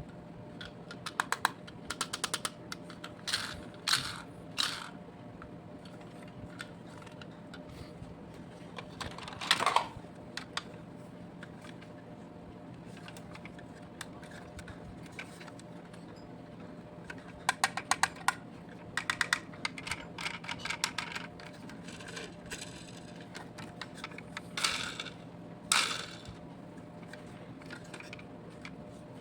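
Clicks, taps and short scrapes of small hard toy vehicles being handled and set down, coming in several clusters, over a steady low hum.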